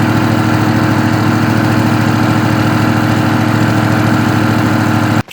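Air compressor running steadily at a constant pitch, inflating a freshly plugged tubeless mower tire; it switches on abruptly and cuts off near the end.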